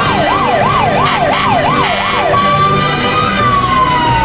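Fire-engine siren sound: a fast yelp rising and falling about three times a second. A little past two seconds in it switches to a long wail that holds and then slowly falls in pitch.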